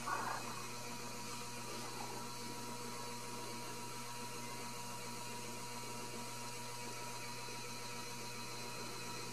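Steady low electrical hum and hiss of room tone, with one short faint sound right at the start.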